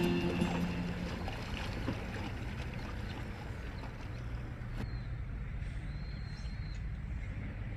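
A car driving along a road: a steady low rumble. Background music fades out in the first second.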